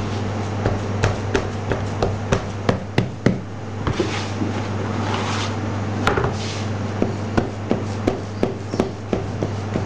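Hands patting and pressing a crumbly biscuit filling flat in a shortcrust-lined aluminium baking tray: an irregular string of sharp taps and knocks, with a few brief rubbing sounds as the surface is smoothed, over a steady low hum.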